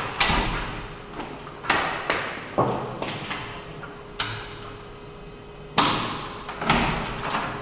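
Wooden hotel room doors being shut and opened: a series of about six sudden thuds, each followed by an echo off the hard walls and floor.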